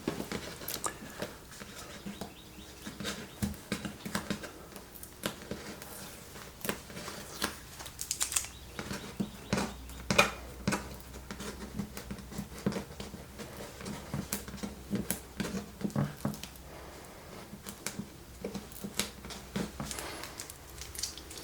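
Double-sided sticky tape being picked and peeled off a clock by hand: an irregular run of small scratches, crackles and clicks.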